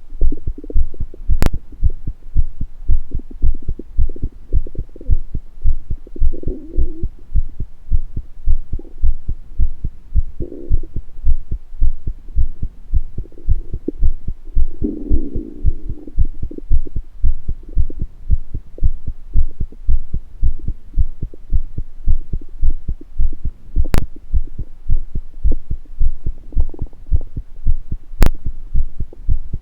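Human heartbeat heard close up, a steady beat of low thumps. Short stomach gurgles come now and then, the longest about fifteen seconds in. Three sharp clicks are heard, one early and two near the end.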